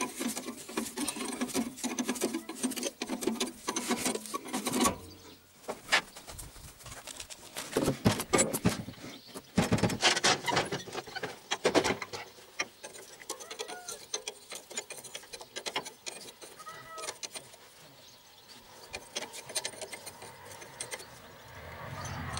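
Hand tools and loose metal parts clicking, clinking and rattling as a tractor engine is worked on, busy for the first five seconds or so, then scattered sharp knocks until about halfway. Birds chirp faintly in the quieter second half.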